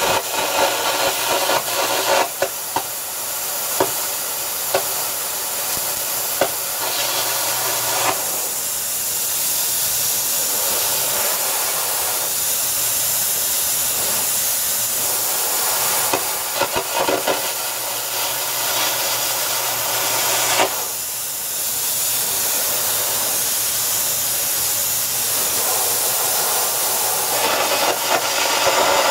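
Carbon arc gouging torch: the crackling arc and blast of compressed air cutting into steel, in stretches near the start, briefly around the middle, and again near the end. A steady hiss of air carries on in between.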